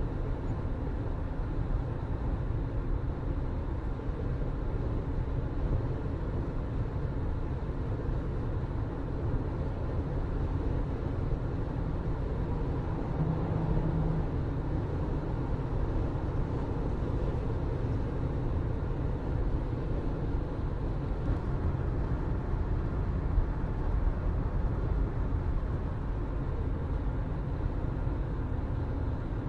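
Steady low rumble of a moving vehicle, with a brief low hum about halfway through.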